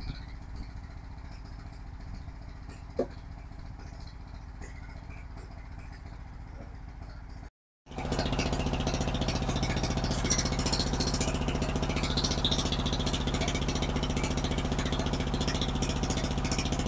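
Engine of a brick-moulding machine running steadily. It is faint at first, then after a short break about eight seconds in it is close and much louder, with a constant low hum and some clatter.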